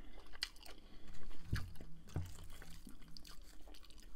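Close-miked eating sounds: soft, wet, sticky clicks and smacks as sauce-coated bacon-wrapped shrimp is picked up with the fingers and chewed, with a couple of soft low thumps about halfway through.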